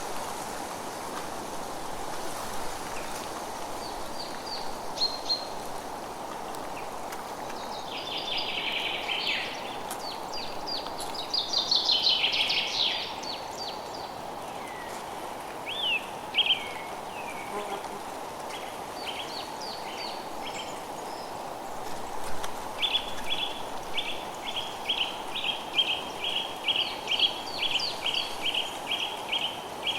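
Forest ambience: several songbirds chirping and trilling over a steady background hiss. There is a dense flurry of chirps about a third of the way in, and near the end one bird repeats the same short note two to three times a second.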